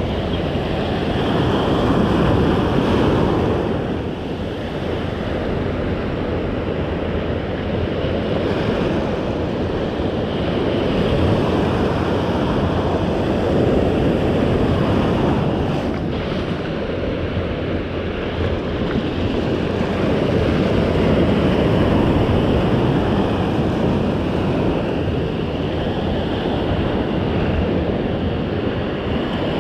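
Ocean surf breaking and washing up the sand close by, swelling and ebbing every few seconds, with wind rumbling on the microphone.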